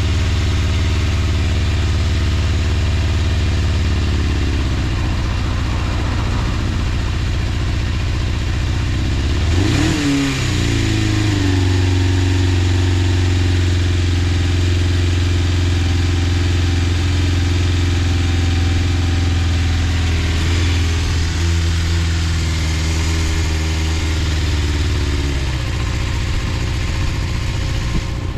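Suzuki Bandit 250's inline-four engine running, with no abnormal noise. It is blipped once sharply about ten seconds in, then held at a steady raised speed for a long stretch before dropping back near the end.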